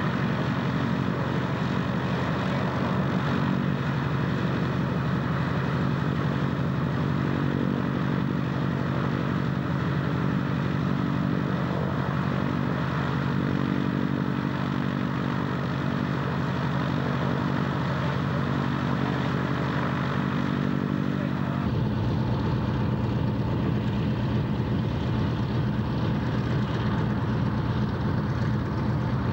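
P-47 Thunderbolt's Pratt & Whitney R-2800 radial engine running steadily on the ground with its propeller turning. About 22 seconds in, it cuts off abruptly to a different, deeper engine rumble.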